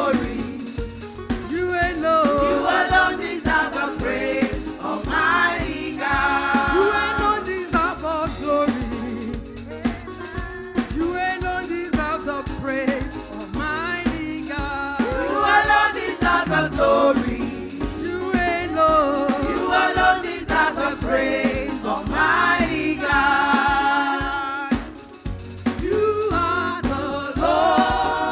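Church praise music: a group of voices singing a gospel song, with a shaker keeping a fast, even rhythm and drums underneath.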